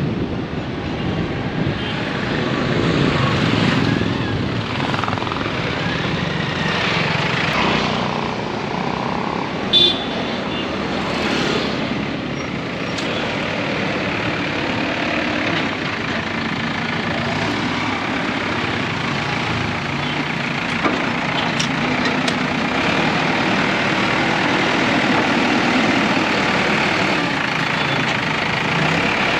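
Engine of a heavy machine running steadily, with one brief sharp sound about ten seconds in.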